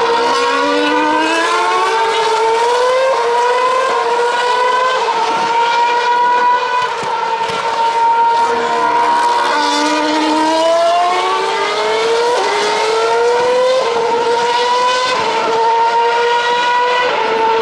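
2013 Formula One cars' 2.4-litre V8 engines running at very high revs, several at once. Their pitch climbs in repeated rising sweeps, each cut short by a quick upshift, as the cars accelerate through the gears out of a slow corner. The pitch drops briefly about halfway through, where a car brakes and downshifts.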